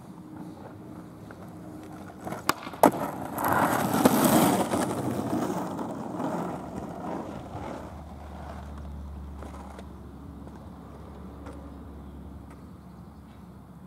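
Skateboard on asphalt: two sharp clacks as the board goes down, then its wheels rolling over rough asphalt, loudest as it passes about four seconds in and fading away over the next few seconds.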